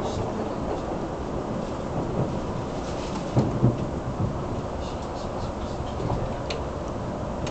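Keisei Skyliner train running at speed, heard from inside the passenger cabin: a steady low rumble with a few heavier knocks about three and a half seconds in.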